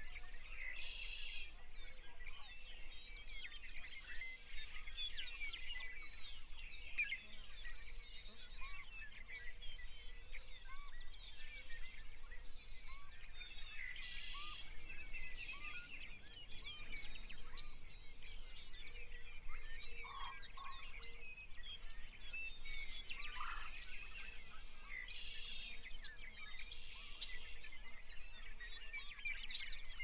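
Many birds chirping and singing at once: a steady, dense chorus of short high chirps and whistled notes.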